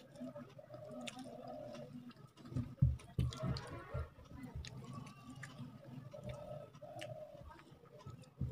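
Fingers mixing and pressing rice on a plate, with soft squelching and light ticking taps and a few low thumps about three seconds in. Chewing begins near the end.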